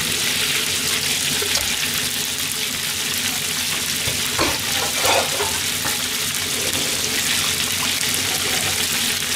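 Chicken karaage pieces deep-frying in hot oil, a steady dense sizzle. This is the first fry of a double-fry.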